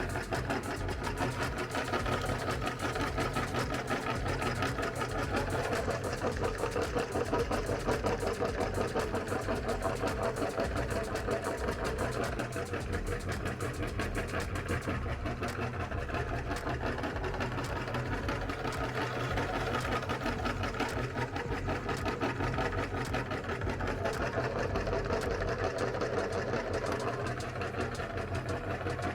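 Electric meat grinder running steadily, its motor humming with a fast, even rattle as the auger grinds ice cream.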